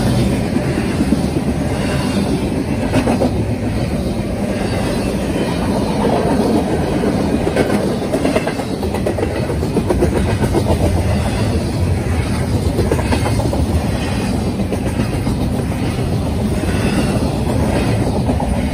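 Double-stack intermodal freight cars rolling past close by: a steady rumble of steel wheels on rail, with the regular clickety-clack of wheels over the rail joints.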